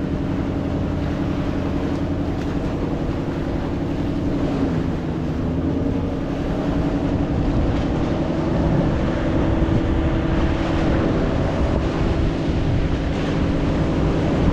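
Outrigger fishing boat's engine running steadily under way, its note dipping briefly about five seconds in before settling again, with wind on the microphone.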